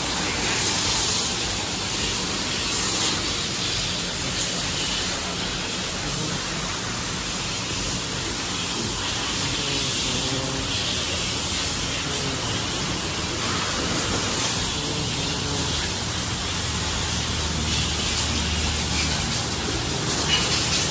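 Pressure-washer jet spraying water onto the underbody and wheels of an SUV raised on a lift: a steady hissing spray with water spattering off the car and the wet floor.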